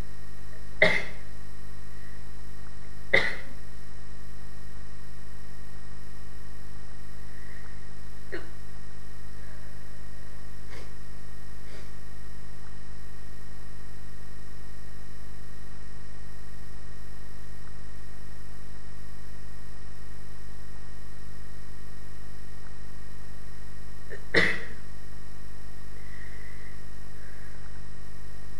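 A person sneezing: two sharp sneezes about two seconds apart near the start, then a third after a long gap of some twenty seconds, with a few fainter short sounds between. A steady low hum runs underneath.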